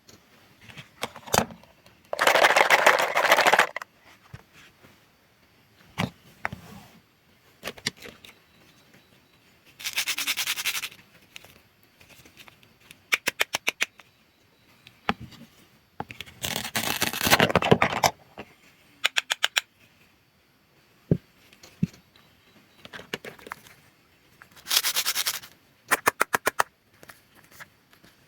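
Toy fruits and vegetables being cut apart. Four long, crackly, scraping noises, each about a second to a second and a half, come between quick runs of rapid clicks and a few single taps.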